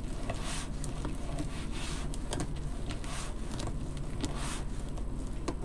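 Deco mesh rustling and crinkling in soft swishes as it is gathered and scrunched by hand into ruffles, with a few light ticks, over a steady low hum.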